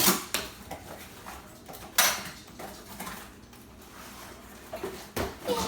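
Sharp knocks and light clatter of things being handled: three distinct knocks, about two seconds apart, with quieter rattling between.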